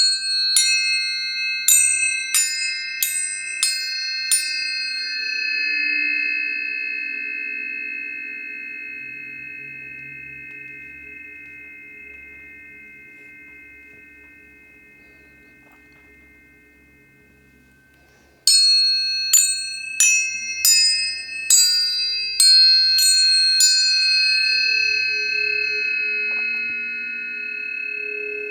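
Planetary tuning forks struck in a quick run of about eight strikes, their tones ringing on and fading slowly; about eighteen seconds in a second run of strikes sets them ringing again.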